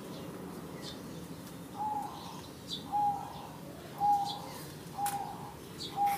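A bird repeating a short, clear, slightly falling note five times, about once a second, with fainter high chirps from other birds over a steady low background hum.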